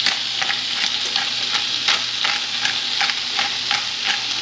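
Red porgy fillet sizzling in butter in a hot skillet at medium-high heat, a steady frying hiss. Over it a hand pepper mill grinds black pepper in short crunching twists, about three a second.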